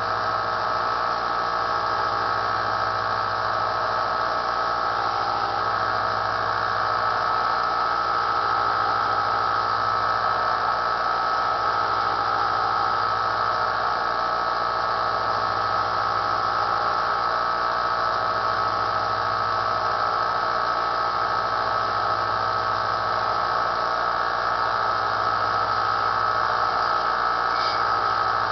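Small bench belt sander running steadily, its electric motor giving a constant whine, with a faint low pulse about every two seconds.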